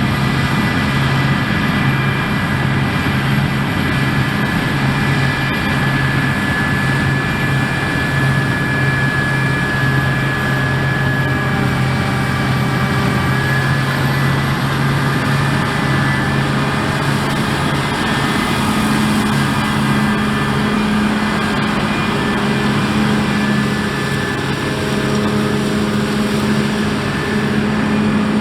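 Heavy diesel harvest machinery running steadily under load, a constant mechanical din with a low drone that changes pitch about halfway through.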